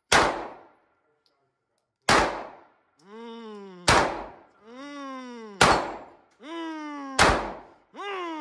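Five gunshots fired one at a time, roughly every two seconds. A short pitched sound that rises then falls comes between most of the later shots.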